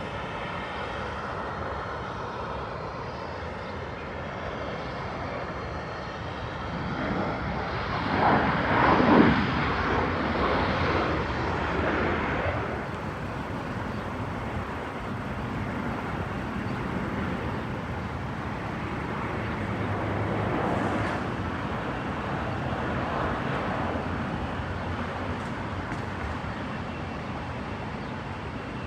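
Jet aircraft passing at an airport: a steady engine rumble that swells to its loudest about nine seconds in, then fades back to a lower steady rumble.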